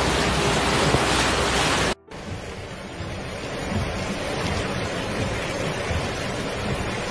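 Heavy rain and wind on the microphone, loud and even, cut off abruptly about two seconds in. Then fast-flowing floodwater rushing and churning down a street, a steady rushing noise with a low rumble.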